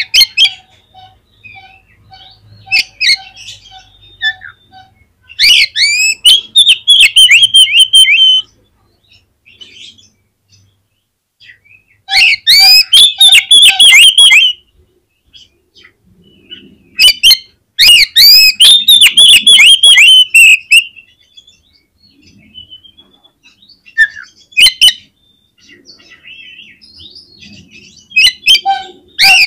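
Oriental magpie-robin (kacer) singing in loud bursts of rapid, sweeping whistled notes, with several phrases of two to four seconds each separated by pauses. A short run of soft, evenly spaced low notes comes in the first few seconds.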